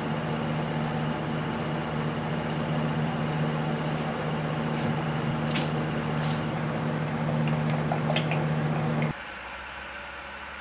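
A steady machine hum with a broad whir, unchanged throughout, that cuts off abruptly about nine seconds in, leaving a quieter steady hum; a few faint light ticks lie on top.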